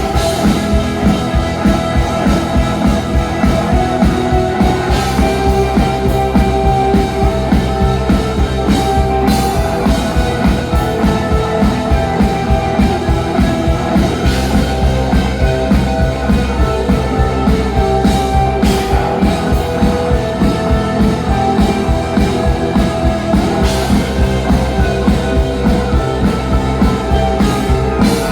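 Rock music with guitar and drums over a steady, even beat.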